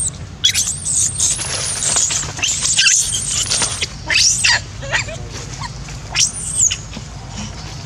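A baby long-tailed macaque screaming in fright: a string of shrill, piercing screams, each rising and then falling in pitch, about half a dozen, the last and strongest around four and six and a half seconds in.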